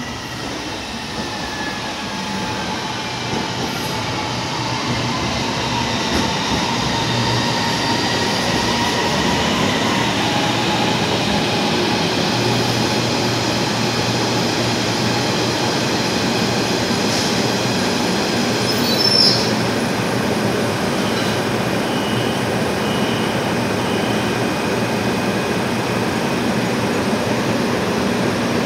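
Rapid KL LRT train running in alongside the platform. A steady rumble of wheels and motors builds over the first few seconds, with a motor whine falling in pitch during the first ten seconds. A brief high squeal comes about two-thirds of the way through.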